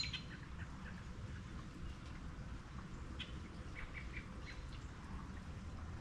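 Steady rain with a low, even hiss, with short bird chirps scattered over it.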